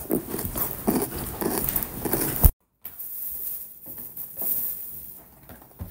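Close-up crunching of a chewed milk chocolate bar with puffed rice, an irregular crackle of small clicks. The sound cuts out completely for a moment about two and a half seconds in, and the crunching then goes on more quietly.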